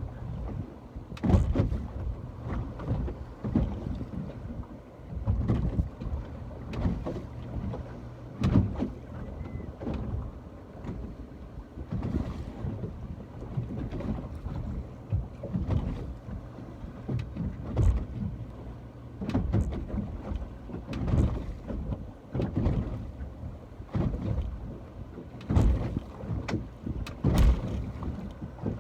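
Ocean water sloshing and splashing, with wind buffeting the microphone in uneven low gusts and many short sharp splashes throughout.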